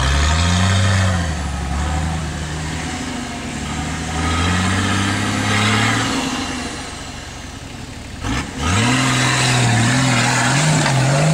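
Nissan Patrol off-road SUV's engine revving up and easing off several times as it works at a steep dirt bank. About eight seconds in the sound breaks off briefly, then the engine comes back at higher revs and holds there, wavering.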